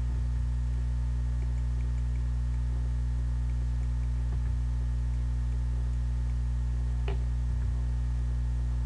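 Steady low electrical hum, with a couple of faint clicks about four and seven seconds in.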